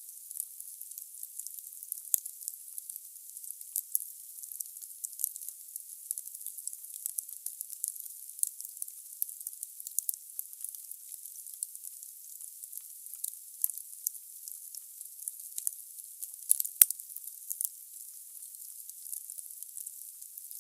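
Wood fire burning in a fireplace: the logs crackle in a steady stream of small high-pitched pops over a faint hiss. One louder crack comes about three quarters of the way through.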